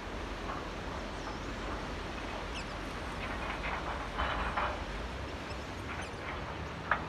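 Steady wash of water lapping in a tidal channel, with a few short bird calls over it, the loudest pair about four seconds in and a sharp one near the end.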